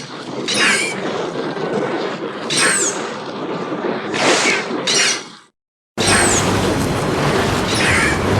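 Mothra larva creature sound effect: harsh screeching cries over a rough crackling rumble, with several short high chirps that fall in pitch. The sound cuts off about five and a half seconds in, and a new call starts half a second later.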